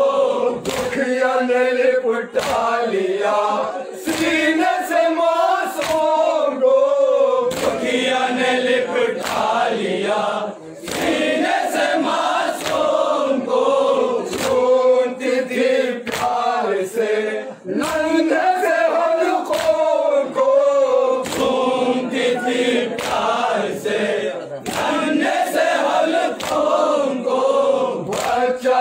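A group of men chanting a noha (mourning lament) together, with a lead voice over a microphone, while mourners beat their chests in matam, sharp slaps falling in a steady beat under the singing.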